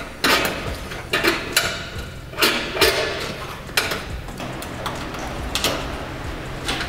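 Plastic cable ties being pulled tight through drilled holes to hold a car's plastic front bumper to the fender: a series of short ratcheting zips and plastic scrapes, denser in the first few seconds and fainter after.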